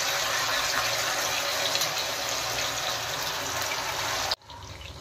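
Masala-coated chicken pieces deep-frying in hot oil in a kadai: a steady sizzle with fine crackling, which cuts off suddenly near the end.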